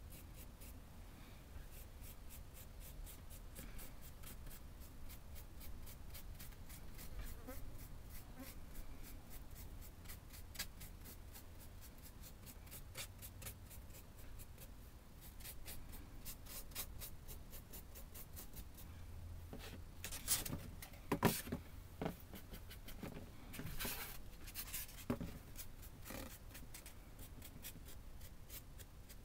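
Paintbrush dry-brushing lightly over a textured diorama piece: quick, faint, scratchy strokes one after another. A few louder knocks come about twenty seconds in.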